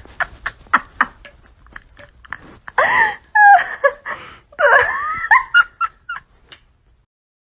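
A cat meowing in several drawn-out, falling calls, about three seconds in and again near five seconds, after a run of short clicks.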